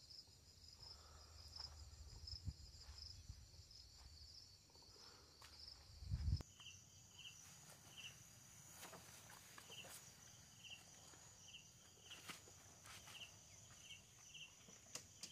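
Faint insect chirping in a wet field: a high, steady trill pulsing evenly. After a change about six seconds in, short higher chirps repeat every second or so. Soft rustles and footstep thuds come and go, the loudest a low thump just before the change.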